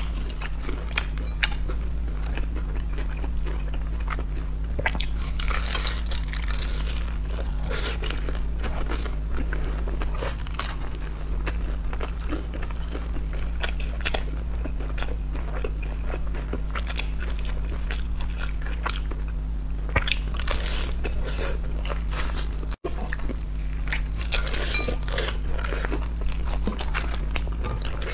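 Close-miked biting, crunching and chewing of pan-fried dumplings with a crisp lacy skirt, a steady run of small crackles and crunches from the fried crust. A steady low hum sits underneath.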